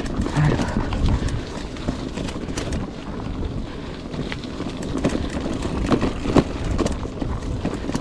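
Specialized Chisel mountain bike rolling over a rough macadam stone road: tyres crunching and the bike rattling with irregular clicks, and a couple of sharper knocks about six seconds in. Wind rumbles on the microphone.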